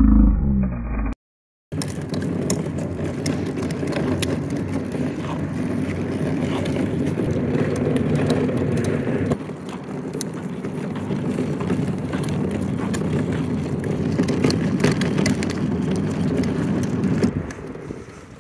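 Hard plastic wheels of a toddler's push car rolling over pavement: a steady rumble with scattered clicks and rattles. It starts after a brief loud, muffled low sound and a moment of silence, and fades out near the end.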